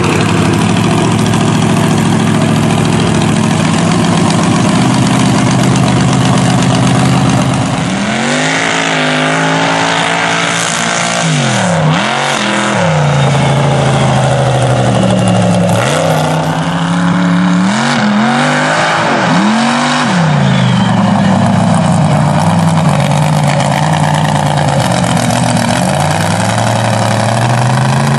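Mud truck engine running steadily, then revved up and down several times from about eight seconds in, its pitch rising and falling, before it settles and climbs again near the end.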